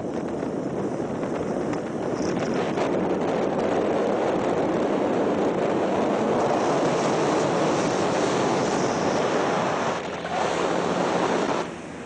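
Steady rushing of wind on the microphone, mixed with the road noise of a moving vehicle. It drops away briefly twice near the end.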